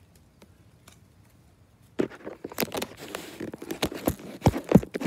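Plastic trading-card pack wrapper being torn and crinkled, with the cards handled: a dense run of sharp crackles and rustles starting about two seconds in.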